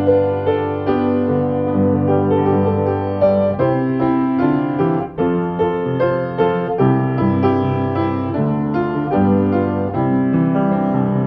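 Background piano music, with chords changing over held bass notes.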